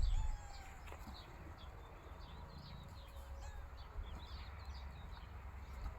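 Small birds chirping in short, repeated calls over a low steady background rumble.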